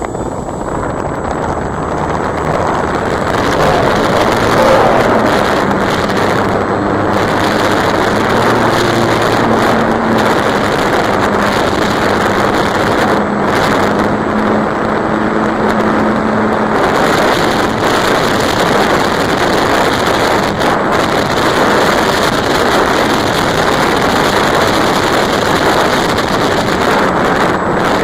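Electric RC plane (E-flite Apprentice) in flight: wind rushing over the microphone mixed with the motor and propeller, steady throughout, with a faint humming tone that drops away about 17 seconds in.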